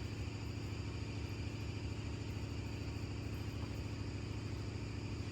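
An engine or motor running steadily with a low, fast-pulsing hum.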